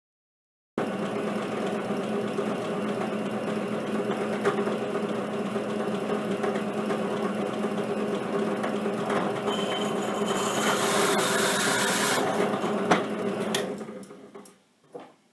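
Drill press running a diamond-tipped core drill into Petoskey stone: a steady motor hum under grinding noise, starting suddenly just under a second in. The grinding grows harsher from about ten seconds in, then the sound dies away near the end.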